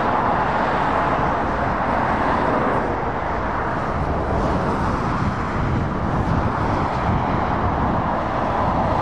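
Steady road traffic noise as a Scania V8 lorry and cars drive along the road: mainly tyre noise, with engine sound underneath.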